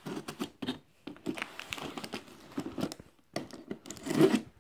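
Knife blade slitting the packing tape and cardboard of a shipping box, in a run of scratchy, crinkling, tearing strokes, with a louder rasp about four seconds in.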